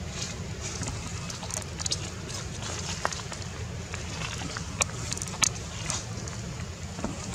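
Outdoor ambience: a steady low rumble with scattered sharp clicks and crackles, the loudest pair about five seconds in.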